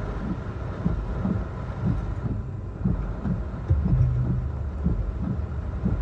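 Hurricane wind and rain squalls, with a heavy low rumble of wind buffeting the microphone that surges irregularly in gusts.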